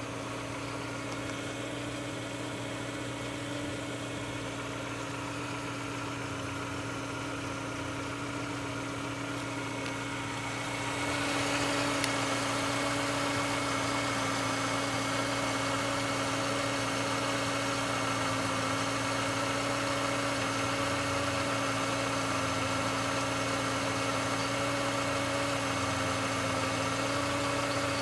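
Volkswagen Golf 5 Plus's BSE 1.6-litre four-cylinder petrol engine idling steadily, the engine with the knock in question. About a third of the way in the sound grows louder and brighter, then holds steady.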